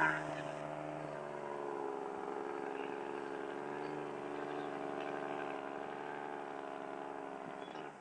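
Heavy truck engine running steadily under load, a low drone whose pitch wavers slowly.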